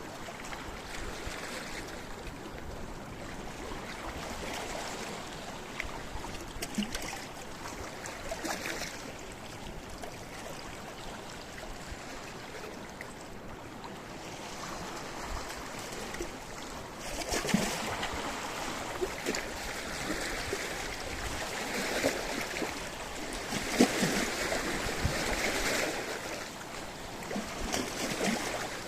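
Sea waves washing and splashing against a rocky shore, a steady wash of water with short splashes. It grows louder in the second half, with several bigger surges.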